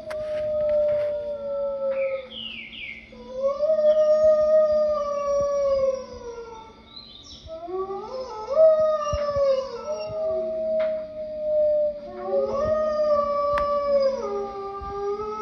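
Wolves howling: long, slowly sliding howls, with several voices overlapping in a chorus midway through. A steady low hum runs underneath.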